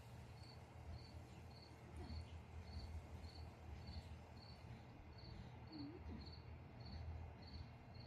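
Faint high chirp repeating evenly about twice a second, typical of a cricket, over a low steady hum.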